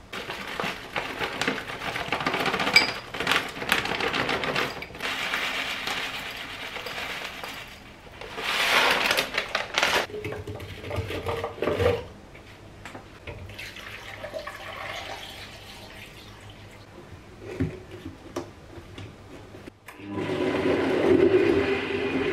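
Water running and kitchen clatter with clicks and knocks, then about two seconds before the end a countertop blender starts and runs steadily, blending chunks of apple and carrot into a purée.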